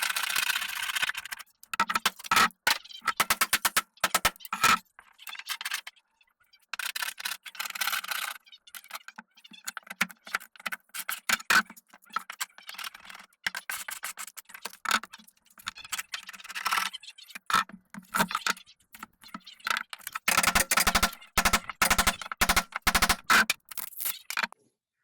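Hand tools scraping and knocking on rotten wood while the flooring and seating are torn out: bursts of rapid clicking and rattling with scraping, broken by short pauses.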